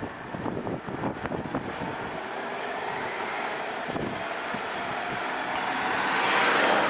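Wind buffeting the microphone, then a road vehicle approaching and passing close, its tyre and engine noise swelling to a peak near the end.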